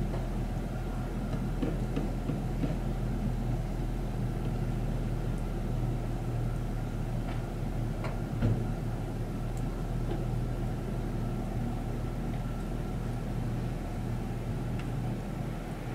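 Steady low mechanical rumble with a faint steady hum, and a single brief knock about eight and a half seconds in.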